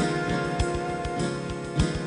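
Instrumental background music with a steady beat of about one and a half beats a second.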